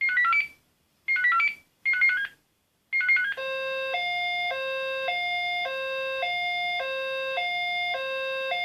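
Electronic sound module of an RC model fire engine: four short bursts of quick falling beeping notes, then about three seconds in a two-tone German fire-engine siren (Martinshorn) alternating low and high pitch about every half second.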